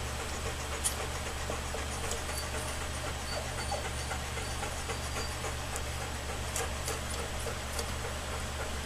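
Two-and-a-half-week-old Alaskan Malamute puppies nursing: small wet suckling clicks, with a few faint high squeaks in the middle, over a steady low hum.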